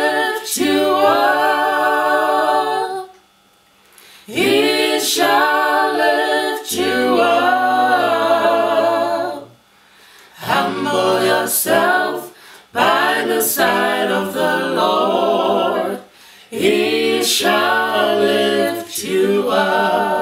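A small group of men and women singing a worship song together unaccompanied, in long held phrases with short breaks for breath.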